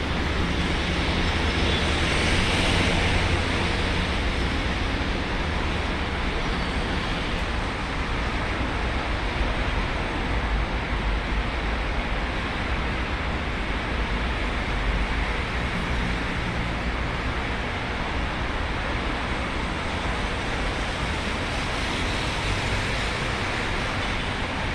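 Steady rushing noise of road traffic, a little louder in the first few seconds.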